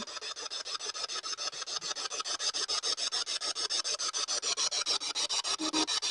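Spirit box sweeping through radio stations: an even, rapid chopping of static hiss, about seven or eight pulses a second, with a brief snatch of tone near the end.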